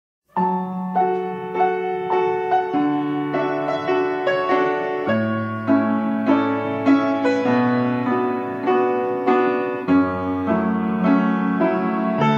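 Solo piano playing the slow opening of a pop ballad: notes struck in an even, repeating pattern, with the bass note changing a couple of times. No singing yet.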